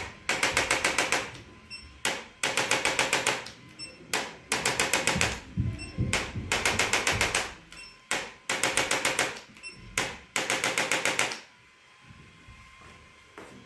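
Rapid, evenly paced percussive tapping, about ten taps a second, in six bursts of roughly a second each with short pauses between.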